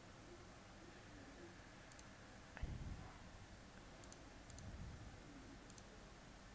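A handful of faint computer mouse clicks, single or quick doubled ticks spread a second or two apart, selecting images in a captcha grid over near-silent room tone. A soft low thump comes about two and a half seconds in.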